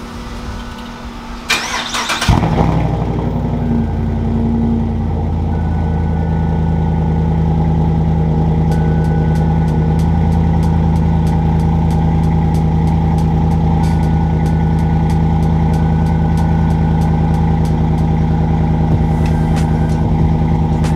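A vehicle's engine cranks and fires about two seconds in, revs up briefly, then settles into a steady idle.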